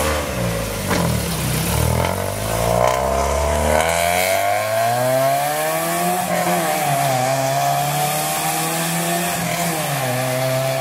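Hyundai Tiburon four-cylinder with headers and a Thrush Turbo muffler accelerating hard away, engine pitch climbing through the revs, dropping briefly at a shift about six seconds in, then rising and holding. The exhaust is loud and buzzy, still loud after the new muffler was welded in.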